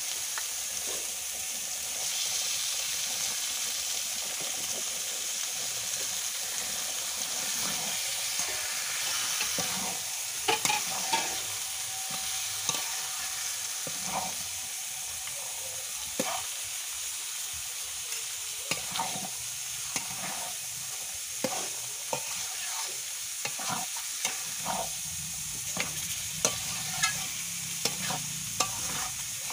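Mutton pieces sizzling in hot oil and spice paste in a metal karai, with a metal spatula scraping and clinking against the pan as the meat is stirred. The clinks come more often from about ten seconds in and are quickest near the end.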